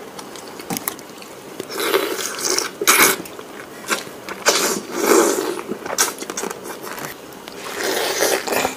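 Close-miked eating sounds of whole cooked frogs: several separate wet mouthfuls of slurping broth, biting and chewing, with a few sharp clicks between them.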